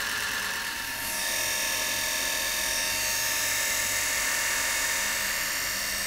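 Four vacuum cleaner motors running together off a Variac: a steady high whine made of several pitches at once, with an airy rushing hiss on top. About a second in, a higher whine grows louder.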